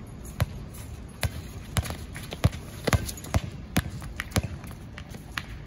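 Basketball being dribbled on an outdoor hard court: sharp bounces at about two a second, uneven in spacing and strength.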